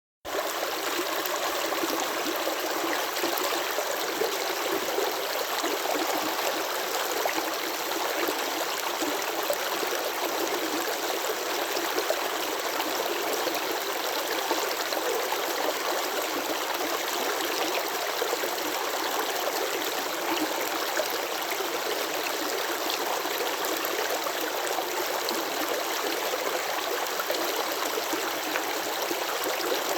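Flowing water running and babbling steadily, a light splashing wash with little deep rumble.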